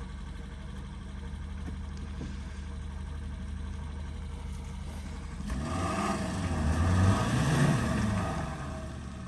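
An off-road 4x4's engine running steadily at low revs. About halfway through it revs up hard, the pitch climbing, then drops back down.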